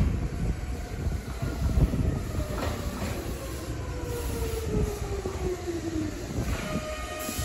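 Meitetsu 6000 series electric train pulling into a station and slowing. A rumble runs through, with wheels clacking over rail joints and a whine that falls in pitch as it brakes. A steady squealing tone comes in near the end.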